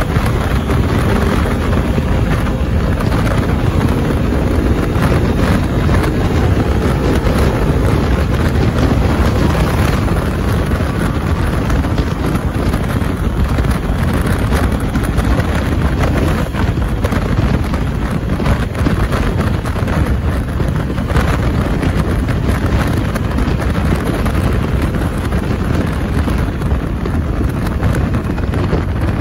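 A KTM Duke 200 ridden at speed: loud, steady wind buffeting on the microphone, with the bike's single-cylinder engine running underneath it.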